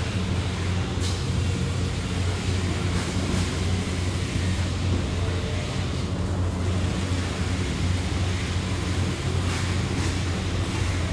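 Factory machinery running: a loud, steady drone with a heavy low hum under a dense mechanical rumble and clatter, with a few short hisses, about a second in, around three seconds in and near the end.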